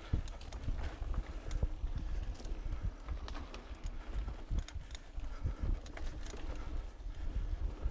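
KTM Lycan 274 mountain bike rolling fast over a dirt singletrack: a steady low rumble from the ride, with frequent sharp clicks and rattles from the bike jolting over bumps.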